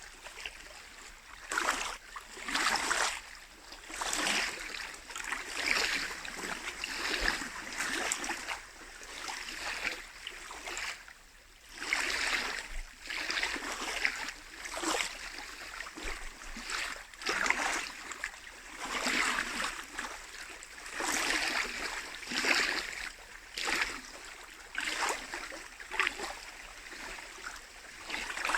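Small lake waves lapping and breaking on the shore, a splashing hiss that swells and fades every second or two.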